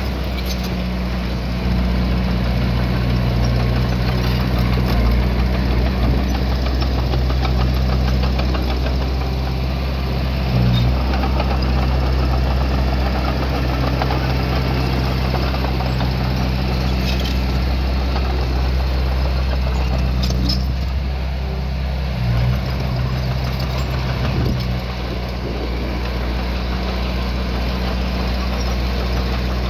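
Diesel engine of a small bulldozer running steadily, its pitch shifting slightly a few times.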